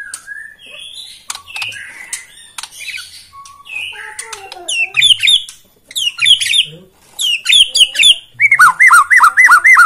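White-rumped shama (murai batu) singing. Quieter varied warbling comes first; from about five seconds in come loud, quick groups of sharp chirps, ending in a fast run of looping notes.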